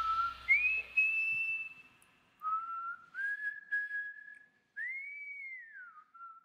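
A person whistling a short tune: a handful of held notes with slides up and down between them, including one swoop up and back down near the end. Backing music fades out in the first second.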